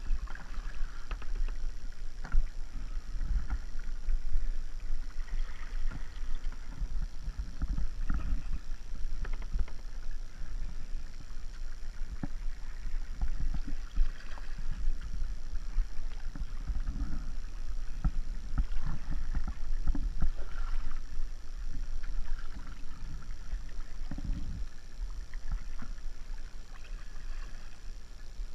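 Sounds of a plastic kayak on flat water, heard close up from on the boat: paddle dips and water sloshing against the hull, with irregular knocks and a steady low rumble.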